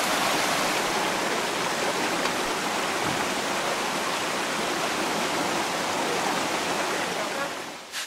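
Waterfall with a heavy flow of water, rushing steadily; the sound falls away just before the end.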